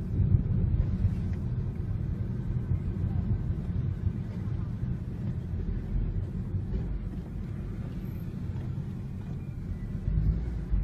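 Steady low rumble of a car driving along a street: engine and road noise heard from inside the cabin.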